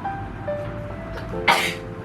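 Background music: a soft melody of single held notes stepping up and down. About one and a half seconds in, a short breathy hiss cuts across it.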